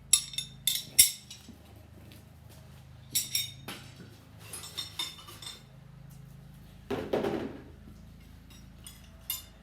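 Steel combination spanners clinking against each other as they are handled, in several clusters of sharp metallic clinks, with a brief sliding, rustling sound about seven seconds in.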